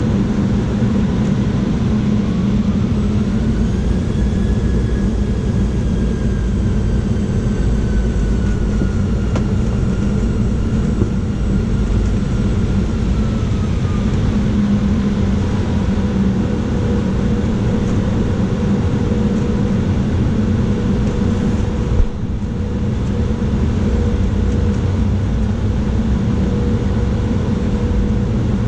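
Jet airliner engines running: a loud, steady rumble with a whine that rises about three seconds in and then slowly falls over the next ten seconds. A brief click comes a little past twenty seconds in.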